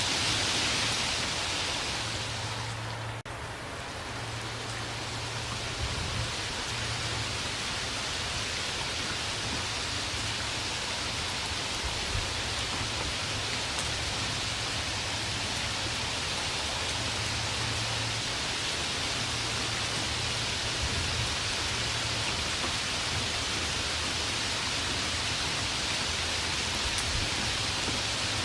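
Steady rain falling in a dense, even hiss, briefly dipping in level about three seconds in.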